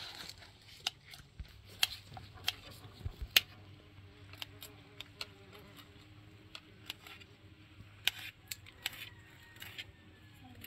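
Scattered sharp clinks and clicks of a meal being eaten off a floor spread: spoons and hands knocking against plates and dishes, irregular, with one louder clink about a third of the way through.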